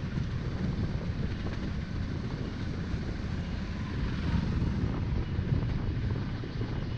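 Motorcycle engine running while riding, a dense steady drone. It swells briefly about four seconds in as an oncoming motorcycle passes close by.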